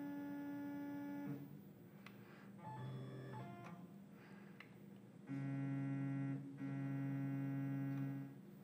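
Tormach PCNC mill's stepper-driven axis whining in steady electronic hums as the head is jogged to bring the dial indicator down. There are three runs: about a second at the start, a shorter, lower one around three seconds in, and a longer one from about five to eight seconds in, with a brief break in the middle.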